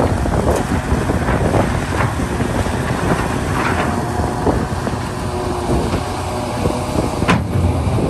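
Hitachi ZX670LCH hydraulic excavator working: its diesel engine runs under load under a steady whine that steps in pitch. Scattered metal clanks sound throughout, the sharpest about seven seconds in.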